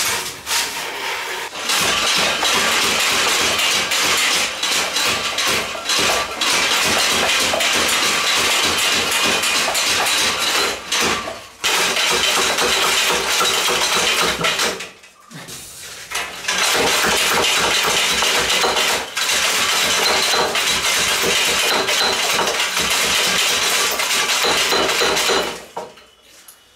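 Homemade hand-cranked bicycle helve power hammer running: the sledge head hammers down onto a steel block, about two whacks a second, over a continuous metallic clatter. It pauses briefly twice near the middle and stops shortly before the end.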